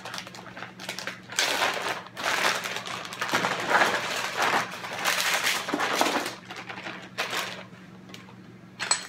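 Chunks of oiled potato and carrot tumbling out of a plastic zip-top bag onto a parchment-lined baking sheet, with the bag crinkling as it is shaken empty; the rustling runs for several seconds and fades out near the end.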